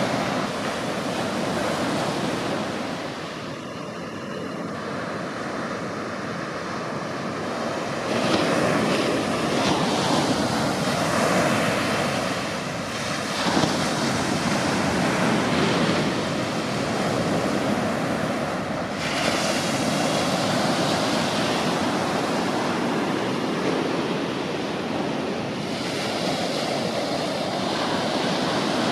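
Small ocean waves breaking and washing up a sandy beach: a continuous rush of surf that swells and eases every few seconds as each wave comes in.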